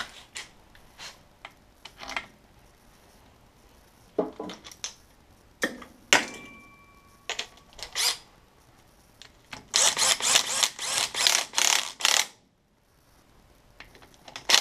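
Metal tools and sockets clattering in a tool-chest drawer, with one brief ringing metal clink. About ten seconds in, a power tool runs a transmission case bolt in with rapid pulses for about two and a half seconds, then cuts off. The tool only snugs the bolt, to perhaps 15–20 foot-pounds, rather than torquing it.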